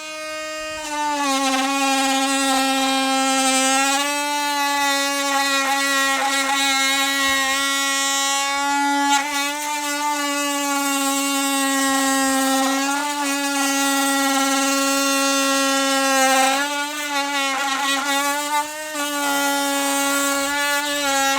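Oscillating multi-tool fitted with a Spyder 2-1/2" bi-metal wide blade, running with a loud, steady buzz while cutting. The pitch sags and wavers briefly several times as the blade bites into the material.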